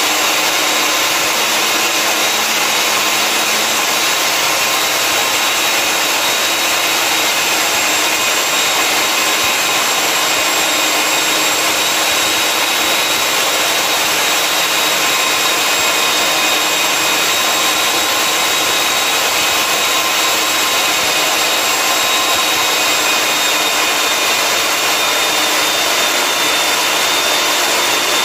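Electric diamond core drill on a rig stand running steadily under load, its wet core bit cutting into a concrete floor. A dense, even hiss with a steady high whine over it, holding unchanged throughout.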